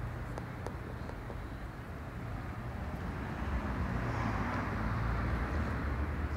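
Street traffic: a steady low engine hum under road noise, growing louder about halfway through.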